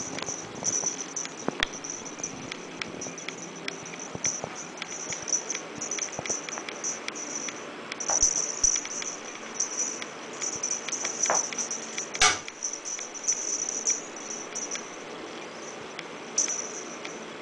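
Kittens scuffling on carpet, with a cardboard carton sleeve rustling and scraping as one kitten wriggles along inside it. A few sharp knocks come through, the loudest about twelve seconds in.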